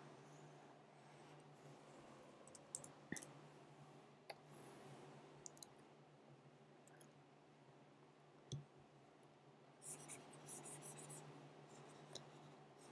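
Near silence: faint room tone with a steady low hum, broken by a few scattered soft clicks and a faint scratchy rustle near the end.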